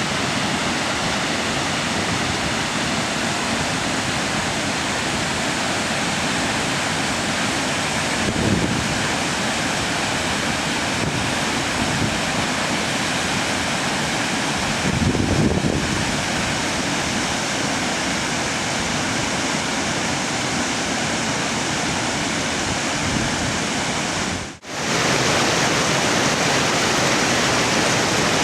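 Steady rush of water, a continuous even roar with two brief low surges. It drops out for an instant near the end and comes back slightly louder.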